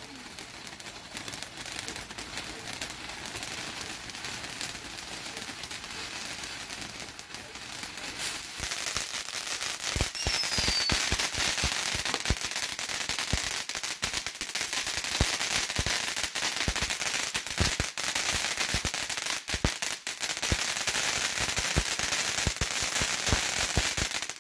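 Santan Fireworks FW190 ground fountain burning: a steady hiss of spraying sparks that grows louder about eight seconds in. From about ten seconds on, dense crackling pops come through the hiss.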